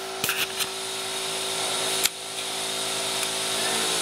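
Gas stove burner being lit: a quick run of igniter clicks just after the start and a single click about two seconds in, over a steady hiss and hum that slowly grows louder.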